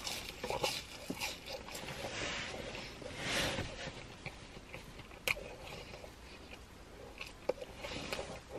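A person eating French fries close to the microphone: biting and chewing, with scattered soft mouth noises and a sharp click a little after five seconds in.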